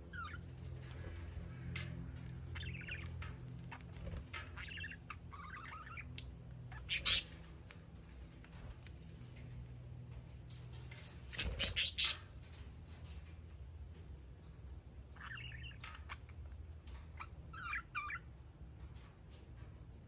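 Budgerigars chirping and chattering in short scattered calls, with two louder bursts of sharp calls, one about a third of the way in and one just past the middle.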